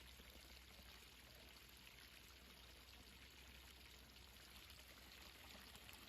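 Faint, steady babbling water.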